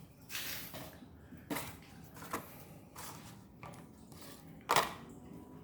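Several short plastic clicks and knocks of a laptop's keyboard deck being handled, the loudest near the end.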